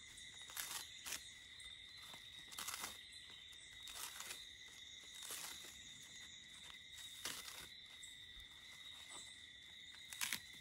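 Dry coconut spathe being split and torn into strips by hand: short, dry rustling rips at irregular moments every second or two, over a steady, high insect trill.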